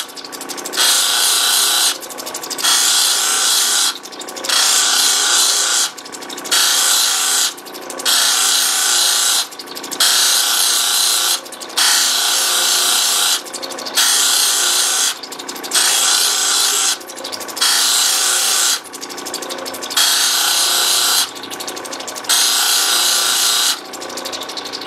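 An opal held in the fingers and pressed against a spinning fine polishing wheel of a lapidary cabbing machine, in repeated strokes: a hissing rub a second or so long, about every two seconds, with the machine's steady hum between strokes.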